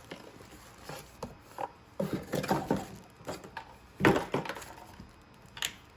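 Irregular knocks and light clatter of hard objects being handled and set down, loudest about four seconds in.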